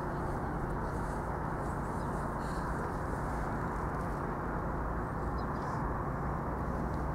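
Steady outdoor background noise, an even low rumble and hiss with no distinct hoofbeats or other events standing out.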